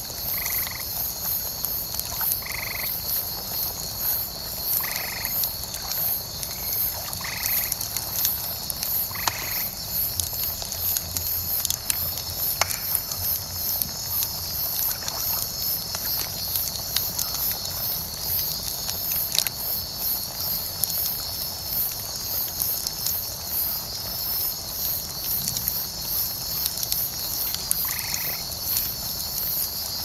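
Wood bonfire crackling with scattered sharp pops, under a steady, rapidly pulsing high-pitched chorus of night insects. A frog calls in short croaks about every two seconds during the first ten seconds and again near the end.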